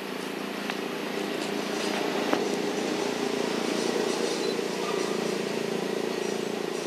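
A steady, low engine hum that grows louder about two seconds in and eases off near the end, with a few faint clicks.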